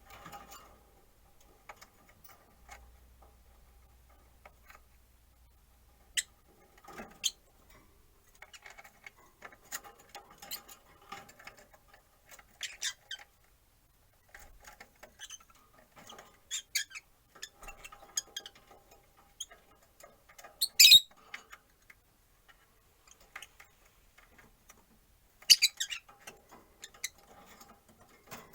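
Rosy-faced lovebirds chirping: scattered short, sharp chirps and clicks, with one louder call about two-thirds of the way in and a quick cluster of calls near the end.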